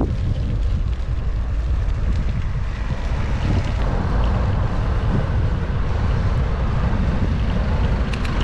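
Wind buffeting the microphone of a camera riding along on a moving bicycle: a loud, steady low rumble.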